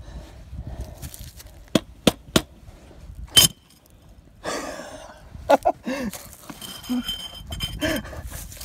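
Mosin-Nagant bayonet stabbed into an upturned glazed ceramic pot: a few light clicks, then one sharp, loud crack about three and a half seconds in as the blade punches through the pot.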